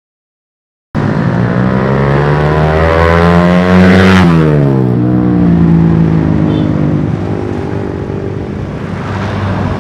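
Suzuki Satria F150 fuel-injected single-cylinder motorcycle with an R9 Mugello racing exhaust riding past: the exhaust note rises in pitch as it accelerates toward the mic. About four seconds in, the pitch drops sharply as the bike goes by, then the sound fades away.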